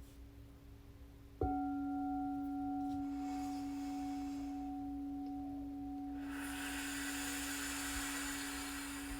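A singing bowl is struck once, about a second and a half in, then rings on as one steady low tone with fainter higher overtones. A soft rushing hiss comes and goes over the ringing.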